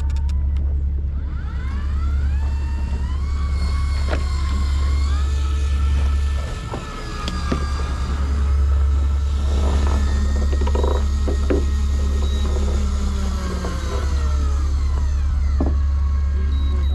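Electric fishing reel motor whining as it winds line in: the whine rises in pitch over the first few seconds, holds steady, then falls away near the end. Underneath runs the steady low drone of the boat's engine.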